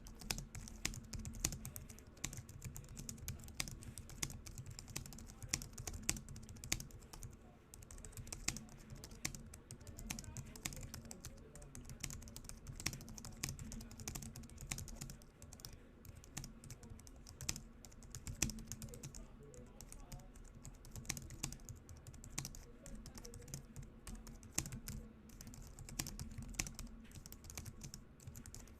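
Fast continuous typing on a Logitech MX Keys, a low-profile scissor-switch keyboard: a dense, irregular patter of soft key clicks, with brief pauses now and then.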